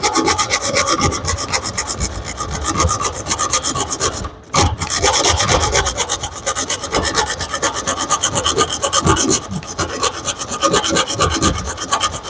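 A bare hacksaw blade, held in the hand, sawing fast back and forth through a strip clamped in a bench vice: a steady run of quick rasping strokes, broken by two short pauses about four and a half and nine and a half seconds in.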